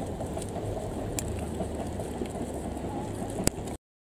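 KiHa E120 and KiHa 110 diesel railcars running away across a river bridge as a steady low rumble, with the murmur of a crowd and a sharp click about three and a half seconds in; the sound cuts off abruptly near the end.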